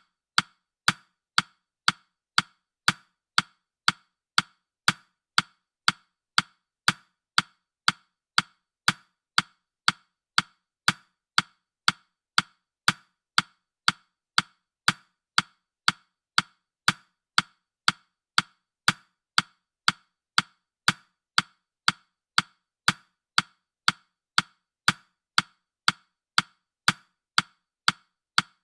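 Countdown timer ticking sound effect: short, sharp, evenly spaced ticks, about two a second.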